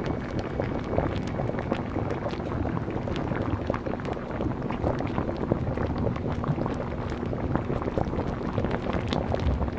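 Fried rice frying in a hot pan: steady sizzling with many quick crackles, over a low steady hum.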